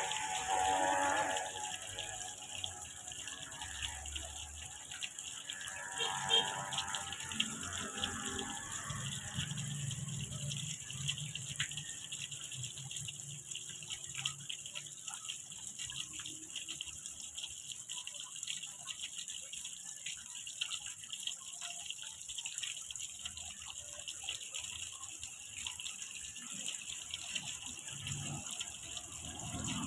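Fountain spray falling onto a pond surface: a steady hiss and fine patter of water splashing on water.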